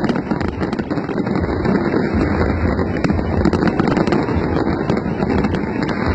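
A fireworks display going off continuously: many rapid sharp pops and crackles from the bursting shells over a steady deep rumble.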